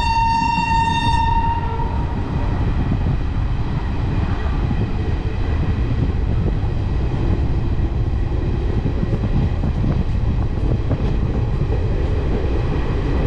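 A high, single-note train horn that cuts off about a second and a half in, followed by the steady low rumble of a moving train on the line.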